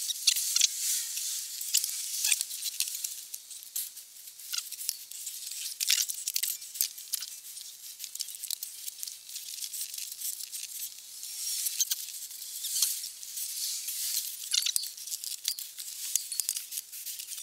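Rustling and shuffling of cardboard and tools being handled, with many scattered light clicks and scrapes.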